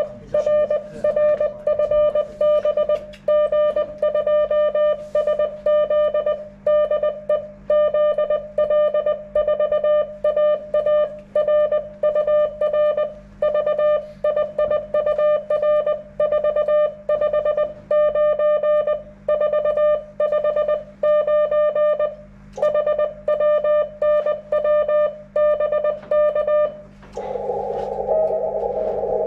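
Morse code being sent on an HF amateur radio transceiver: a single mid-pitched sidetone keyed on and off in quick dots and dashes, with a steady low hum beneath. A couple of seconds before the end the keying stops and the receiver's band-limited hiss comes back.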